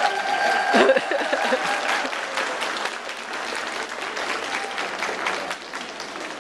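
Ringside audience applauding, loudest about a second in and then easing off, with a voice briefly over it at the start.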